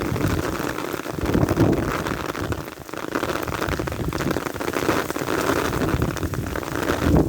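Heavy rain pattering densely on an umbrella canopy, with gusts of strong wind swelling underneath; it eases briefly about three seconds in.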